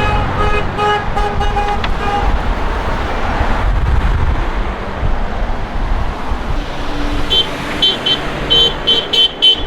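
Car horns honking over passing road traffic: a run of about five short beeps in the first two seconds, traffic passing in the middle, then a higher-pitched horn tooting in about six quick beeps near the end.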